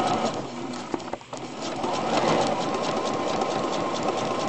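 Home sewing machine stitching a zipper tape, running steadily with a rapid needle rhythm. It stops briefly about a second in, then runs again.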